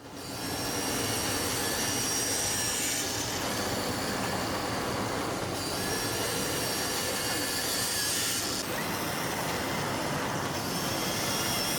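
Digital CNC knife cutting machine running: a steady rushing noise with high whines that come and go every few seconds.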